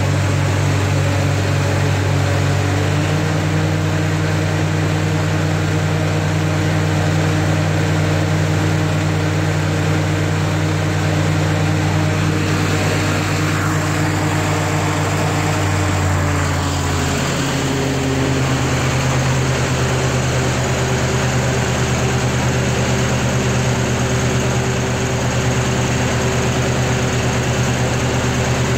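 Lincoln SA-200 welder's Continental F162 four-cylinder gasoline engine running steadily at about 1,190 rpm, with its pitch stepping slightly down about seventeen seconds in.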